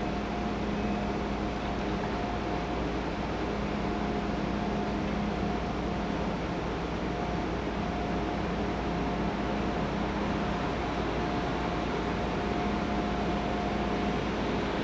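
Stationary ICE-T electric train idling at a platform: a steady hum and whir from its onboard auxiliaries, with a faint whine that drops in and out.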